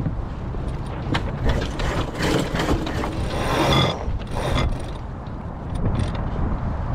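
Sailboat sheet winch ratcheting as a sheet is ground in, a run of pawl clicks that grows dense and loud about two to four seconds in, over a steady wind rumble on the microphone.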